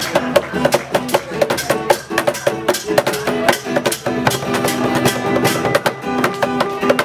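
Acoustic guitar strummed in a steady, rhythmic chord pattern.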